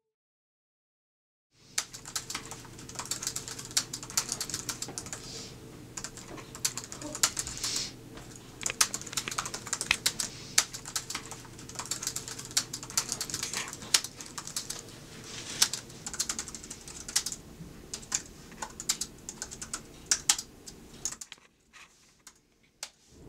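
Typing on a laptop keyboard: a quick, irregular run of key clicks that starts about a second and a half in and stops a couple of seconds before the end.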